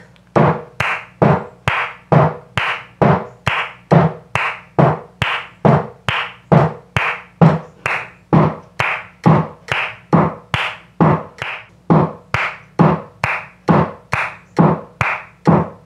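Flamenco palmas: a woman's handclaps keeping a steady, even beat of about two claps a second. This is the duple half of a 3-against-2 hemiola rhythm.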